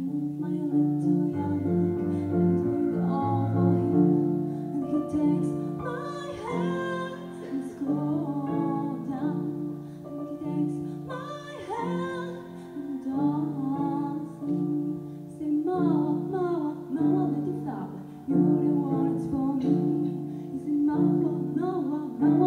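A girl singing solo with live piano accompaniment: her voice moves up and down over held piano chords.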